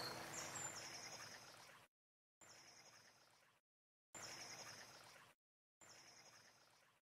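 A faint, high, rapid chirping trill, repeated four times the same way about every second and a half, with dead silence between the repeats. The soft chime music dies away under the first one.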